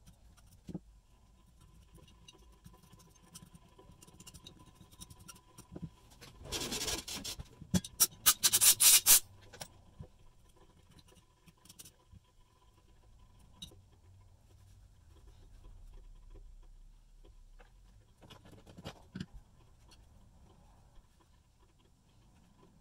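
Hand scrubbing on a metal saw part as it is cleaned: a burst of quick, loud scrubbing strokes about a third of the way in and a shorter burst near the end, with faint rubbing and small clicks in between.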